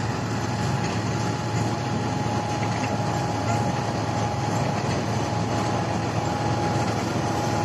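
Standard TSC-513 combine harvester's engine running steadily, with a thin steady whine over the engine noise.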